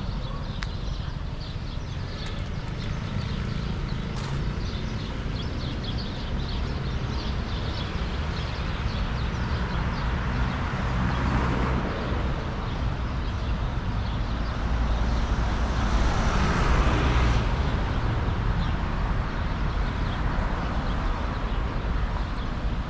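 City street traffic: vehicles driving past over a steady low rumble, with two louder passes, about halfway through and about three-quarters through.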